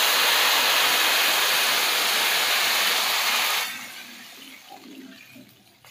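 Water poured from a jug into a pan of hot ghee-roasted semolina and sugar, a loud hissing rush of pouring and sizzling that drops off sharply about three and a half seconds in, leaving a faint bubbling as the mixture is stirred.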